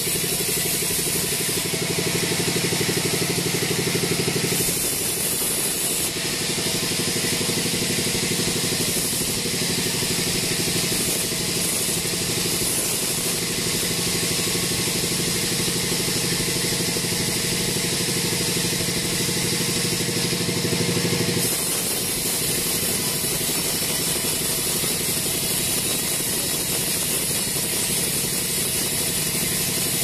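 Band sawmill running and its blade ripping lengthwise through a teak log: a steady mechanical drone over a high, hissing sawing noise. The deeper part of the drone drops away about two-thirds of the way through while the hiss goes on.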